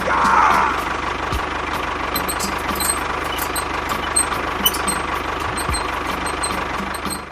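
An engine idling steadily with a fast, even low rumble and light ticking over it, a brief louder rush in the first half second.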